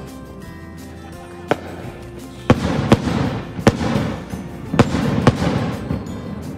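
Fireworks exploding: about six sharp bangs, one early and the rest in the second half, each trailed by a lingering rumble.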